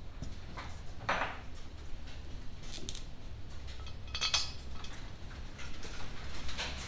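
Metal parts clinking and scraping, a few separate knocks about a second apart, as the cylinder head of a 14 hp Kohler engine is handled and set in place. A steady low hum runs underneath.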